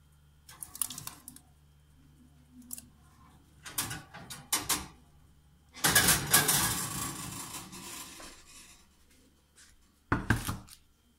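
Metal springform cake pan clattering and scraping against the oven's wire rack as it is pulled out by hand, with the longest, loudest scrape midway. Near the end it is set down with a single knock on a wooden board.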